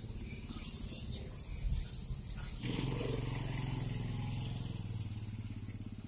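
A motorcycle engine starts up close about halfway through and runs with a steady pulsing beat, easing slightly toward the end. Before it comes in, high twittering chirps of the swiftlet flock can be heard.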